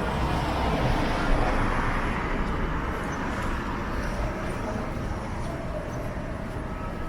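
City street traffic: a vehicle passes, its tyre and engine noise swelling and fading over the first three seconds, with a faint steady engine tone from traffic afterwards. Gusty wind rumbles on the microphone throughout.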